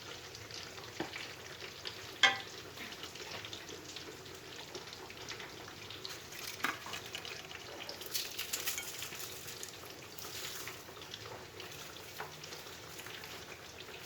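Food frying in hot oil in a pan, with a steady sizzle and scattered crackles that grow busier in the middle. A sharp knock comes about two seconds in, and a smaller one later.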